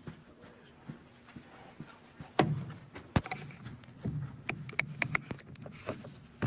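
Microphone handling noise from a podium microphone being adjusted on its stand: a thump about two seconds in, then sharp clicks and a quick run of small knocks, over a steady low hum.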